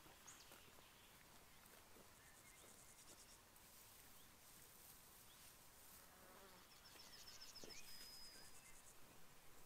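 Faint summer field ambience: insects chirping in the grass in repeated high pulses, with one brief high trill ending in a held note about seven seconds in.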